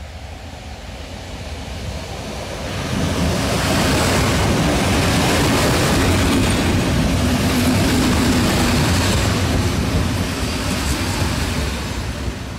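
EN57-series electric multiple unit passing close alongside the platform. Its wheel and running noise swells about three seconds in, stays loud while the carriages go by, and fades near the end.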